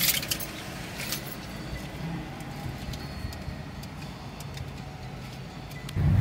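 A car's engine running, heard from inside the car as a steady low rumble with a few light clicks. Near the end a louder low rumble comes in.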